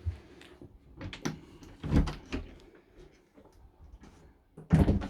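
A motorhome washroom door being handled: a few clicks and knocks, the loudest about two seconds in, then a louder rustling noise near the end.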